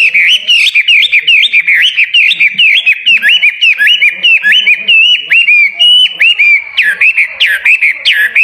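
Caged songbird singing loudly in a fast, unbroken string of sweeping notes, about three or four a second, the sweeps growing wider near the end.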